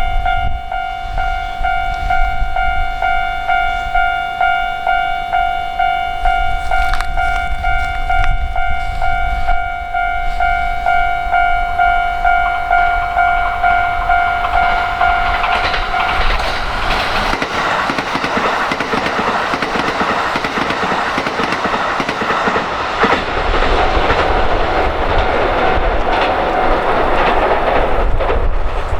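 Japanese railway level crossing alarm bell ringing its repeating 'kan-kan-kan' warning. About halfway through, a train passes over the crossing with loud rushing and wheel clatter on the rail joints, and the bell is no longer heard.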